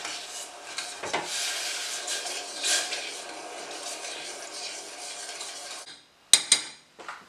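Metal spoon stirring sugar and water in a stainless steel saucepan, scraping and clinking against the bottom and sides of the pan. The stirring stops about six seconds in, followed by a few sharp metallic clinks.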